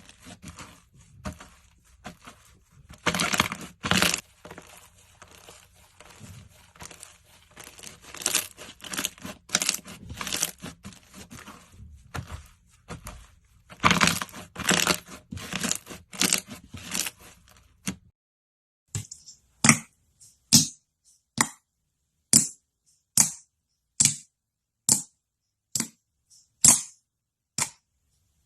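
Slime being squeezed and worked, crackling densely with many small pops. For the last ten seconds or so it gives separate sharp pops, roughly one a second.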